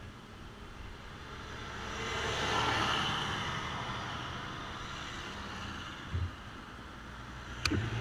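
A bus passing by on the road, its noise swelling to a peak about three seconds in and then slowly fading, over a low steady hum. A short thump comes just after six seconds, and a couple of sharp clicks near the end.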